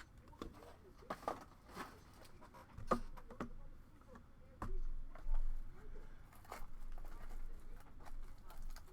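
Trading cards being handled on a table: scattered light clicks and taps at irregular intervals.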